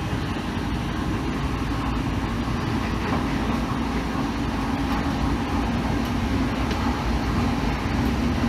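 Train running along the track, heard from on board: a steady rumble of wheels on rail with a steady hum and a few faint clicks.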